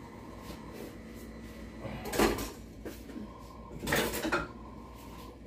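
Kitchen handling noises: two short clattering, rustling bursts about two seconds apart, the second a little longer, over a faint steady hum.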